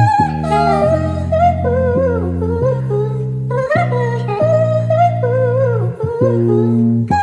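Soul-style music sample: a wavering lead melody with vibrato, sung or hummed, over a bass line stepping between held notes about once a second.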